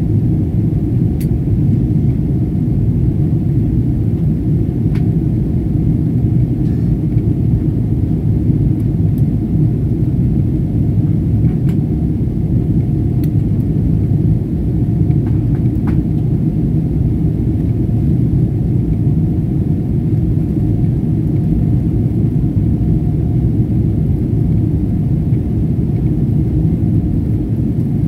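Steady low rumble of a jet airliner's cabin in flight: engine and airflow noise heard from a window seat, with a faint steady hum above it.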